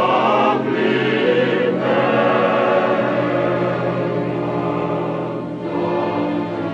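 Background music with a choir singing long, held notes.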